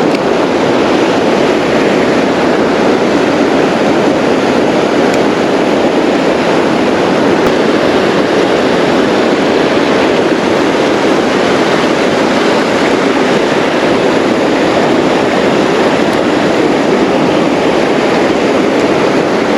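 Steady rush of fast-flowing creek water, a loud, even noise that does not change.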